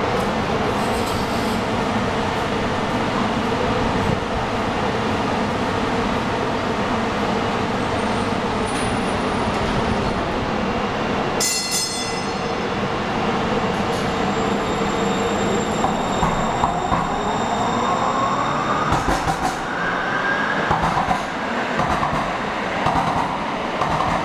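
TriMet MAX light rail train in an underground station: a steady hum and rumble while it stands at the platform, a brief sharp sound about halfway through, then its motors whine up in pitch as it pulls away and moves off.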